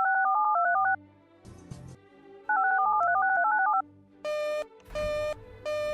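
Two quick runs of touch-tone (DTMF) dialing tones, each about a second long, over a faint low music bed. About four seconds in, a buzzy electronic beep starts repeating, roughly one beep every 0.7 s, as part of an emergency-alert broadcast's signalling sequence.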